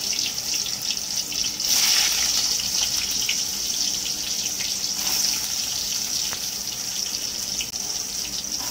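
Wet, squeezed soya chunks sizzling and crackling as they hit hot oil in an aluminium kadai, with a surge about two seconds in as more chunks go in, then a steady hiss.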